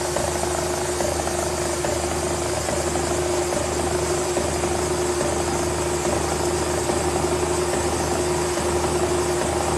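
Cincinnati No. 2 milling machine running with a large milling cutter taking a 1/4-inch-deep cut: a steady whine over a hum, with faint regular knocks about one and a half times a second.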